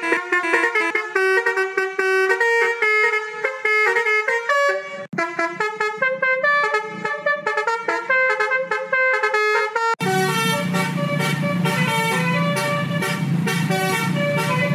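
Basuri-style multi-tone musical bus horn from a smartphone horn-simulator app, playing a preset tune note after note. About ten seconds in, it switches to another tune with a deeper, fuller tone.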